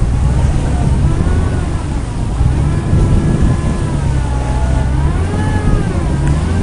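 Off-road 4x4 engine working hard under load, its pitch rising and falling several times as the revs go up and down over a heavy low rumble.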